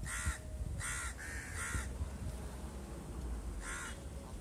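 A crow cawing: a quick run of four caws in the first two seconds, then one more near the end.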